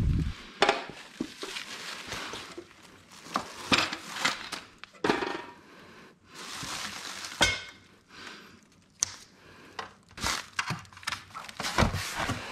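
Plastic packaging wrap and cardboard rustling and crinkling as aluminium wagon parts are unwrapped. Irregular knocks and clinks come from the metal parts being handled.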